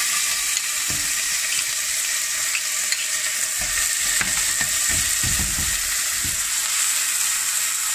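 Chopped onion sizzling steadily in hot olive oil in a pot, stirred with a metal spoon. Low knocks and scrapes of the spoon against the pot come through, mostly in the middle and latter part.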